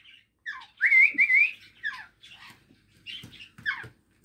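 African grey parrot whistling: a run of quick downward chirps, with a louder rising, wavering whistle about a second in.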